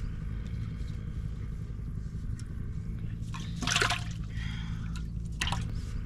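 Water splashing and dripping in a metal pot as hands and live fish move in it. The loudest splash comes about two-thirds of the way through and a smaller one near the end, over a steady low rumble.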